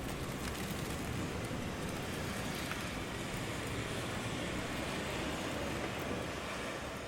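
Rainy city street ambience: a steady wash of rain mixed with the noise of car traffic, beginning to fade out near the end.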